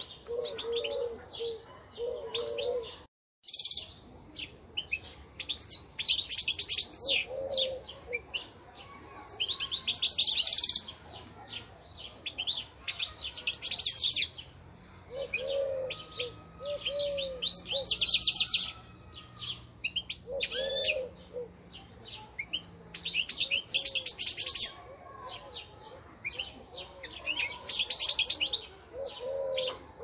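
Caged finches, goldfinches among them, singing in fast twittering phrases of a second or two, repeated every few seconds. Low cooing notes come in now and then underneath.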